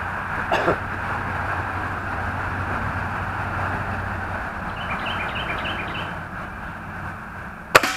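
A single shot from a Hatsan Edge .22 air rifle: one sharp crack near the end. It sounds over a steady background rumble.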